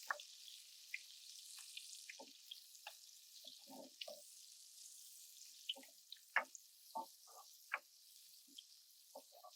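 Pearl onions, shallot and garlic sautéing in a pan, sizzling faintly: a steady hiss with scattered small pops and crackles.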